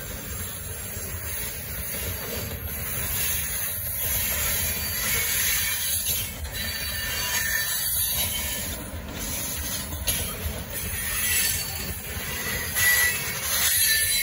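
Freight train of tank cars rolling past close by: a steady rumble and clatter of steel wheels on the rails, with a high wheel squeal coming and going.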